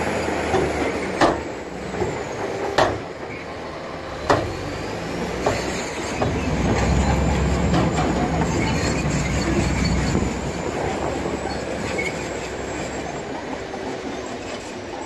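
Diesel engine of a Shacman dump truck running while its bed tips up to unload soil. Four sharp knocks come within the first few seconds. A heavier low rumble follows for a few seconds as the load pours out of the raised bed.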